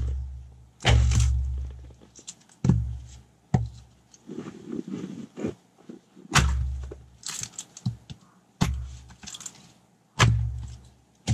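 Axe splitting firewood on a wooden chopping block: six heavy thunks spaced one to three seconds apart, each dying away quickly, with lighter knocks between them.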